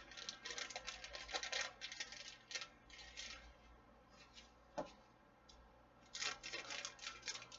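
Crinkling of a plastic packet as it is handled and pulled at, then, after a short pause, scissors snipping the packet open near the end.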